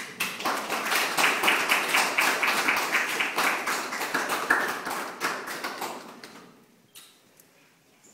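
A group of people applauding, clapping that starts suddenly and dies away about six seconds in, leaving a few last claps.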